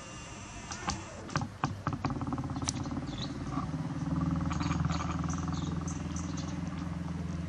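A steady low motor or engine hum that starts about two seconds in and grows louder, after a few sharp clicks, with faint bird chirps over it.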